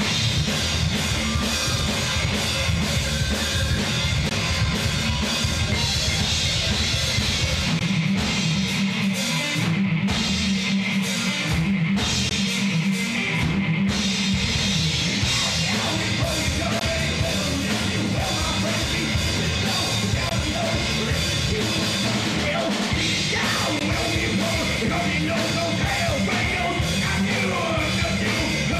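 Live rock band playing loud on electric guitars, bass guitar and drum kit. About eight seconds in, the bass end thins out for several seconds, with a few short stops, before the full band comes back in.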